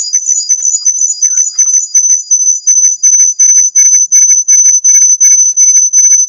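Loud, high-pitched electronic tone coming through an online call: a whistle that warbles in pitch at first, then holds steady, under rapid beeping about four times a second that grows louder after about a second. It is unwanted noise from an unmuted participant's line.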